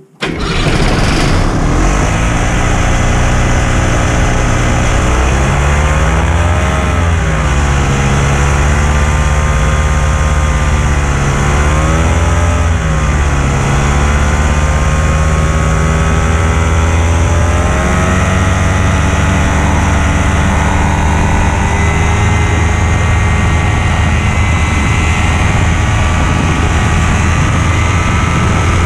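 Light aircraft's piston engine starting up suddenly, then running loud and steady, its pitch rising and falling twice in the first half as the throttle is worked before settling.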